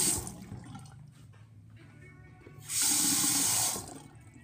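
Faucet water running into a bathroom sink basin and down the drain in two short runs: the first stops just after the start, the second lasts about a second near the end.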